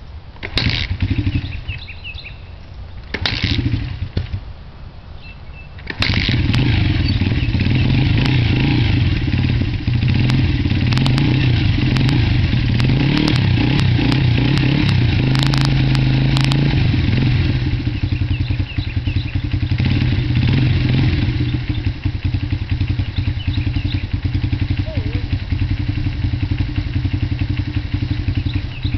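Honda XR80R's 80cc four-stroke single cold-started without the choke: a few short kicks that catch only briefly, then it fires about six seconds in and keeps running. It is revved briefly about halfway through, then settles to a slightly quieter, uneven idle.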